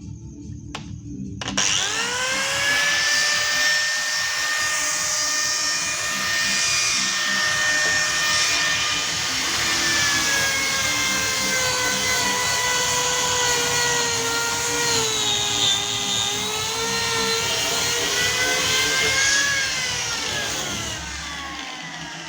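Handheld electric power tool's motor starting with a quickly rising whine about one and a half seconds in. It runs at a high whine whose pitch sags for a moment as it is loaded, then winds down with a falling pitch near the end. Background music with a low beat plays underneath.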